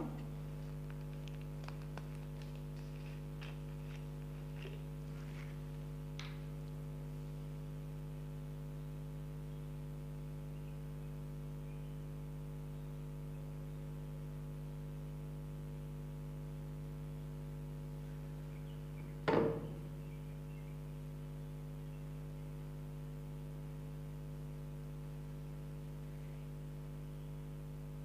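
Steady electrical mains hum on the recording, with a few faint clicks in the first several seconds and one sharp knock about two-thirds of the way through.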